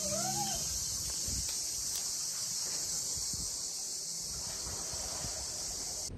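Steady, high-pitched chorus of cicadas.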